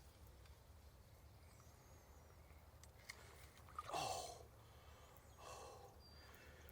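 Quiet creekside background with a few faint bird chirps. About four seconds in, a man lets out a short breathy exhale that falls in pitch, followed by a softer breath a moment later.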